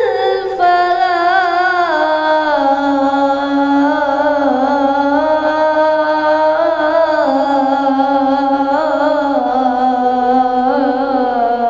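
A boy's voice chanting the Islamic call to prayer (adhan) in the Kurdi maqam, one long unbroken melismatic phrase. It starts high, steps down in pitch over the first two seconds, then ornaments and wavers around a lower note.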